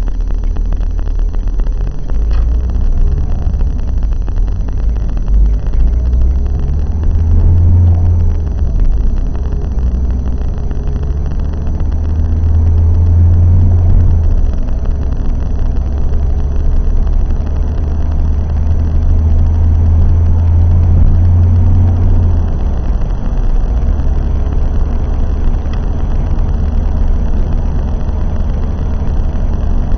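Renault Laguna engine running under load as the car accelerates, a steady low drone that swells in a few long pulls and drops back about three quarters of the way through.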